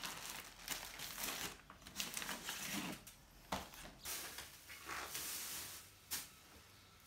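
Plastic bags crinkling and rustling as they are handled, in irregular bursts with a few sharp clicks.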